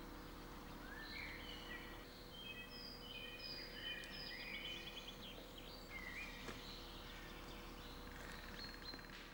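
Faint woodland ambience with small songbirds singing: short high whistled notes and quick trills, busiest through the middle, over a faint steady hum.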